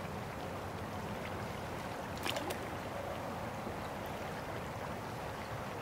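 Creek water flowing steadily past a wading angler, with two short sharp sounds close together about two seconds in.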